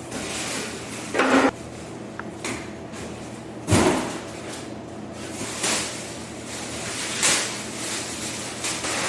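Handling noises in a small room: a short scrape about a second in, a sharp knock a little before four seconds, and a few softer knocks and rustles after it.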